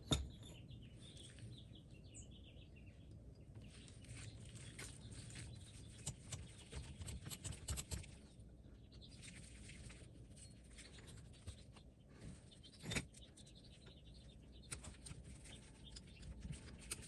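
Faint small metallic clicks and scrapes of screw-bolts being handled and started into a cast-iron Wilton vise during reassembly, busiest a few seconds in, with one louder knock near the end.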